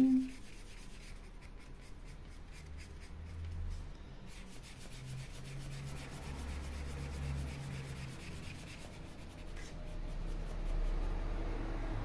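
Felt-tip brush marker rubbing and scratching over a thin wooden panel as it is coloured in.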